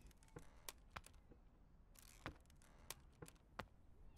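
Near silence with about seven faint, short clicks scattered through it.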